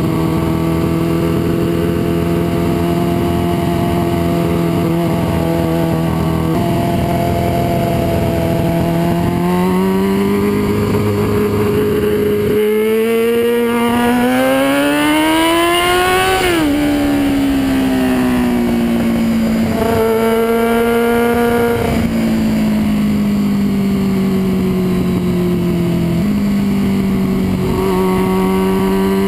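2002 Yamaha R6 inline-four through an HR1 Riot slip-on exhaust, heard from on the bike while riding. The engine holds steady, then the revs climb in a long rise under acceleration and drop sharply about halfway through. After that the revs step up and down with gear changes.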